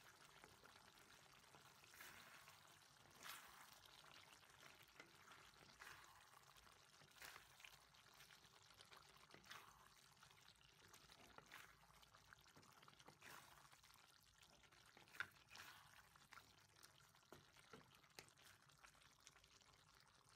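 Pork and long beans simmering in coconut-milk sauce in a wok: faint bubbling with soft irregular pops every second or so, one sharper pop about fifteen seconds in.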